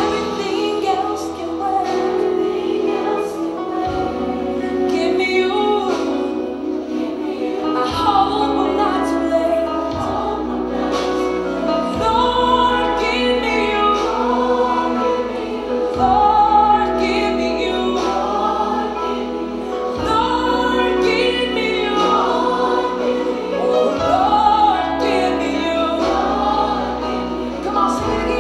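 A gospel worship song: sung voices with vibrato over a musical backing, its bass notes changing every two to four seconds.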